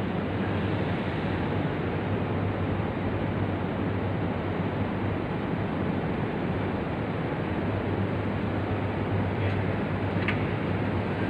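Steady rushing, rumbling noise with a low hum underneath, unchanging throughout; two faint short clicks near the end.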